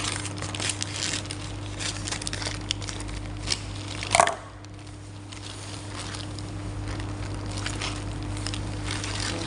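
Plastic packaging crinkling and rustling in irregular crackles as a parcel is handled and opened, with one louder short sound about four seconds in.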